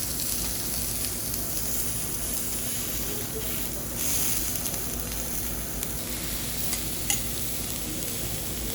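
Food sizzling on a teppanyaki steel griddle, a steady frying hiss, with a few short light clicks of a utensil on the hot plate, the clearest about seven seconds in.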